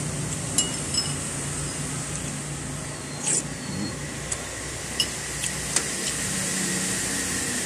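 Steady background hum of road traffic and air conditioning, with a few light clinks of a metal spoon against a bowl and a short slurp of soup about three seconds in.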